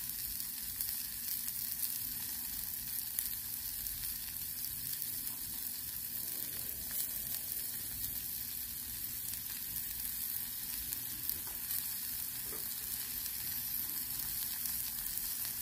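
Food sizzling on a Blackstone flat-top griddle: a steady frying hiss from halloumi, zucchini, bacon and tortellini cooking on the hot plate.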